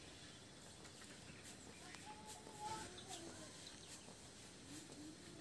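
Near silence, with a few faint short bird calls near the middle and end.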